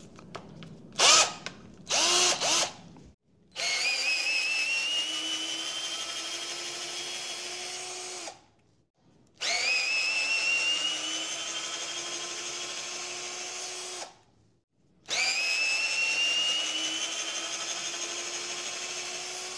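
Small 12V cordless drill/driver motor and gearbox run three times, each for about five seconds, with a whine that rises as the motor spins up and then creeps higher before cutting off. A couple of short blips of the motor come before the first run.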